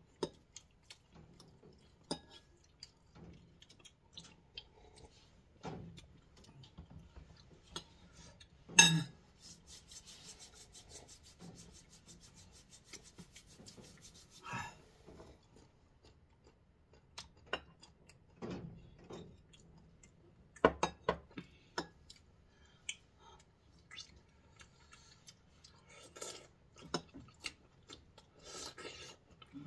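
Palms rubbed briskly together for about five seconds to warm hands chilled by the cold, a dry steady rasping. Around it, scattered clinks of forks on ceramic plates and bowls, with one sharper knock just before the rubbing starts.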